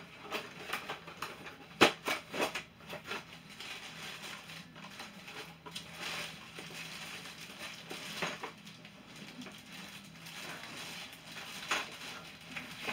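Cardboard boxes being rummaged through and handled: irregular rustling and scraping of cardboard, with a sharp knock about two seconds in followed by a few smaller clicks.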